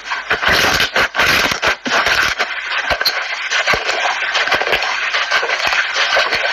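Slime being squeezed and worked by hand: a dense, continuous run of sticky crackles and little pops.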